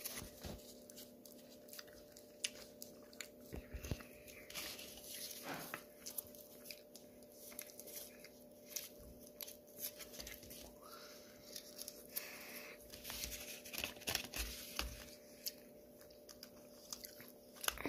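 Foil gum wrapper and cardboard gum pack being handled and peeled open by hand: irregular crinkling with many sharp little crackles and ticks.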